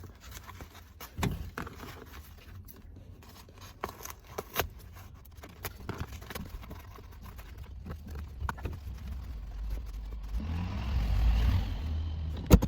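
New carpet being worked into place on a car floor by hand: scattered scrapes, rustles and knocks, a longer rubbing noise near the end and a sharp click just at the end.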